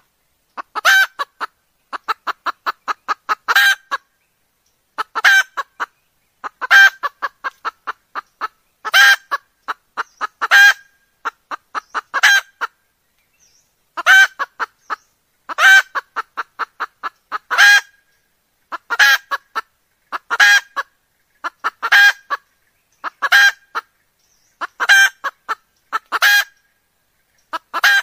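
Red junglefowl hen calling: loud, sharp clucks about every second or two, broken by short runs of quick, softer clucks. It is the hen's call that hunters use to lure junglefowl.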